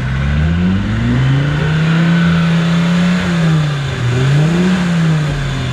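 Land Rover Defender engine revving as it pulls through deep mud ruts: the pitch climbs, holds for about a second and a half, drops, then climbs and falls again near the end.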